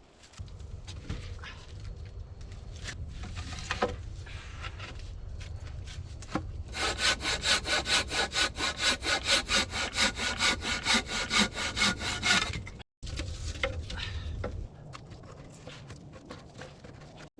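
Hand saw cutting wood. Quieter scraping strokes come first, then from about seven seconds in a run of steady back-and-forth strokes, about two and a half a second, for some five seconds. This is followed by more scraping.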